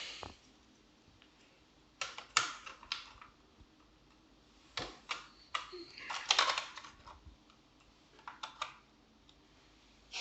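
Small plastic-and-metal clicks and taps of a laptop RAM module being handled and pushed into its memory slot, coming in a few short clusters with pauses between.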